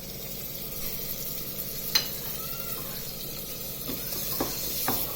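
Onions and chopped tomatoes sizzling in hot oil in a pressure cooker, stirred with a spoon, with a sharp clack about two seconds in and a few lighter knocks of the spoon on the pot near the end.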